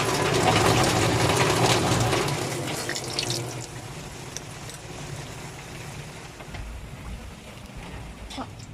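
Running water, loud for about the first three seconds, then a fainter trickle with a few small clicks.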